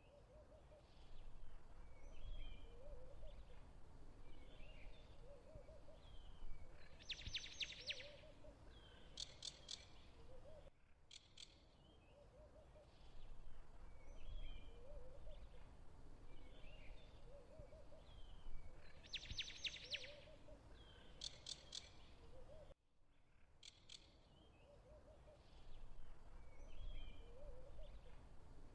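Faint looped background ambience of chirping birdsong, with quick trills and small repeated calls. The same 12-second stretch repeats over and over.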